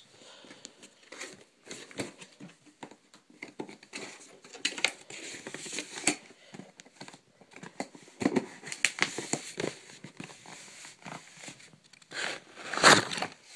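Cardboard parts box and its packing being opened by hand: irregular rustling, crinkling and tearing, with the loudest rip near the end.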